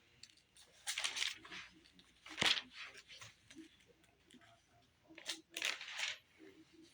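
Thin book pages rustling as they are turned, in a few short bursts, with a sharper snap of paper about two and a half seconds in.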